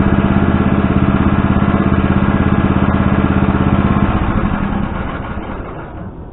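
Backhoe engine idling with a steady pulsing beat, then winding down and stopping about four to five seconds in.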